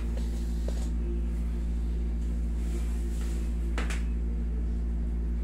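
Steady low hum of a window air conditioner running, with a couple of faint short clicks about a second in and near the end.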